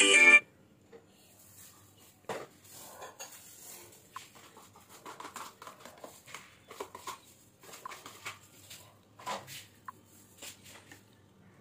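Guitar music cuts off just after the start. Then faint kitchen handling sounds follow: scattered light clicks, knocks and small clinks of dishes and utensils.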